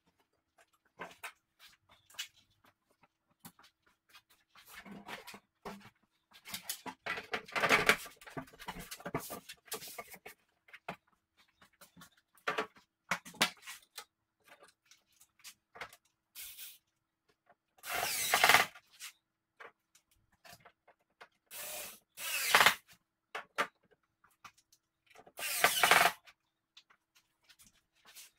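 Cordless drill driving screws into a TV's plastic back cover in several short runs of about a second each, with clicks and clatter of the panel and loose screws being handled between them.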